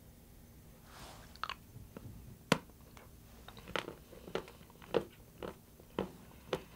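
Dark chocolate snapped and broken by hand: one sharp crack about two and a half seconds in, then a run of crisp, evenly spaced cracks about two a second.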